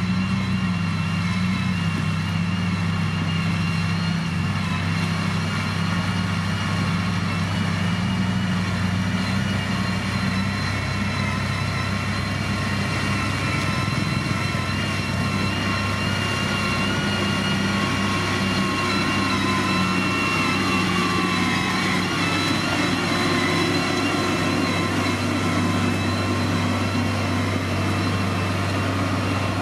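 Diesel engine of heavy road-building machinery running steadily, a low hum with a set of higher whining tones above it.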